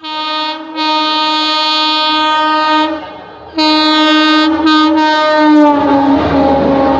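Electric locomotive's air horn sounding as the train approaches at speed: a short blast, a long blast of about two seconds, then after a short gap three more blasts close together. About two thirds of the way through, the horn's pitch drops as the engine passes, and the loud rush and clatter of the coaches going by follows.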